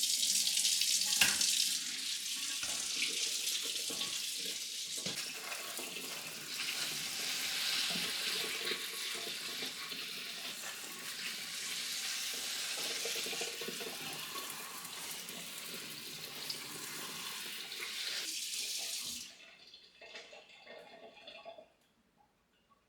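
Tap water running steadily into a sink, with a few knocks, shut off abruptly about nineteen seconds in, followed by a few faint handling clatters.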